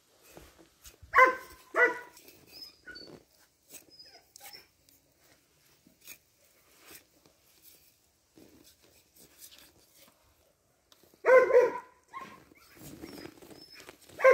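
A dog barking: two quick barks about a second in, then a few more short barks near the end, with a quiet stretch between.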